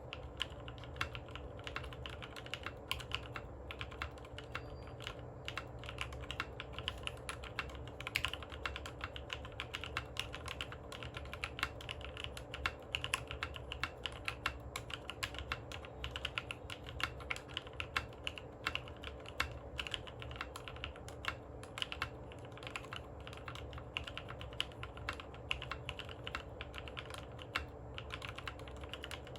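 Continuous touch typing on a Matrix Abel X Buster custom mechanical keyboard with lubed Novelkeys Cream linear switches, an aluminium plate and ePBT keycaps: a fast, uneven stream of key clacks with an occasional louder stroke.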